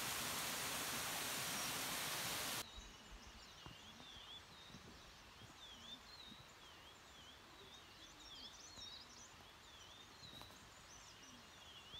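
Steady rushing of a small waterfall, cut off abruptly about two and a half seconds in. Then quiet open-air ambience with birds repeatedly giving short, high, swooping chirps.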